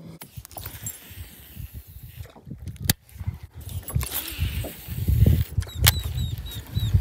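Wind gusting on the microphone, with a couple of sharp clicks as a baitcasting rod and reel is cast and wound in. A run of short high chirps comes near the end.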